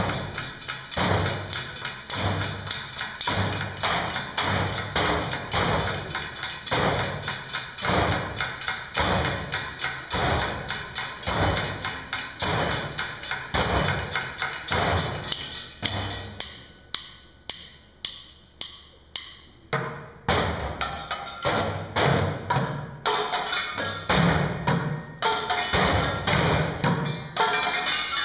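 Junkyard percussion ensemble: drumsticks beating a steady rhythm on upturned plastic buckets and metal trash cans. A little past halfway the group drops out for a few seconds, leaving only single sharp taps about three a second, then the full beat comes back in.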